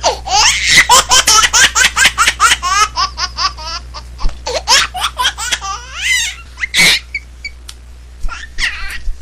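A baby laughing in a fast run of high-pitched laughs. The laughs thin out into scattered ones, with a loud squeal about seven seconds in.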